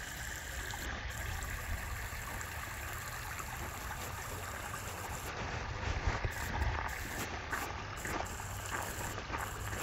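Steady rush of a flowing creek.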